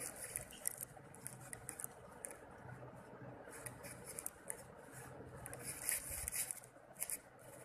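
Faint handling noise of small wires being joined by hand: irregular light rustling and small clicks.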